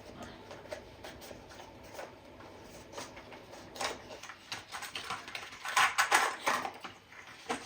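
Light clicks and rattles of small objects being handled on a desk, sparse at first with a busier run of clicks about six seconds in.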